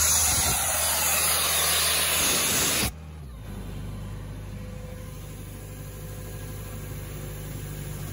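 Compressed air blasting out of the Ingersoll Rand P185 compressor's ball-valve air outlet with a loud hiss over its Yanmar diesel engine, cut off suddenly about three seconds in. The diesel then runs on steadily.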